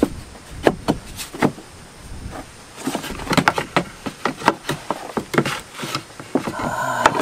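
Thin plywood floor panels knocking and clattering against each other and the van floor as they are shifted and fitted around a seat-rail mount. There are a few separate knocks at first, then a busier irregular run of knocks from about three to six seconds in.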